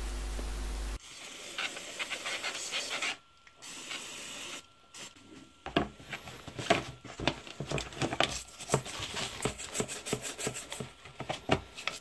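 A toothbrush scrubbing motorcycle electrical parts, a regulator/rectifier and other small components, wet with contact cleaner in a plastic tub. Quick rasping brush strokes begin about a second in and run with two short pauses.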